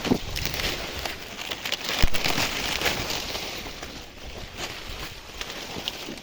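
Dry maize leaves and husks rustling and crackling as the plants are handled, with one sharp knock about two seconds in.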